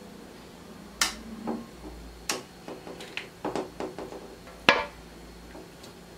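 Metal tongs clacking against a wok and an aluminium basin while boiled chicken pieces are lifted out and dropped in: three sharp metallic knocks with a short ring, about one, two and four and a half seconds in, with lighter taps between.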